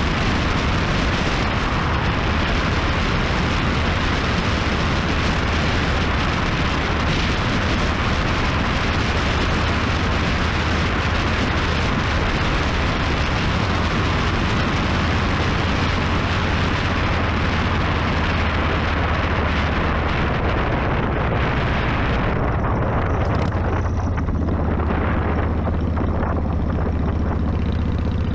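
Wind rushing over the microphone of a moving motorcycle, with the bike's engine running as a steady low drone underneath. About three-quarters of the way through, the wind hiss thins and the engine drone comes forward.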